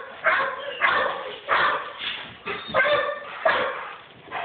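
A dog barking over and over, about seven evenly spaced barks.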